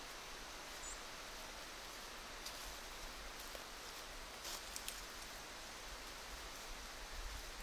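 Quiet woodland hiss with a few faint rustles and ticks in dry leaf litter, from a black bear walking through the leaves, the clearest about two and a half and four and a half seconds in.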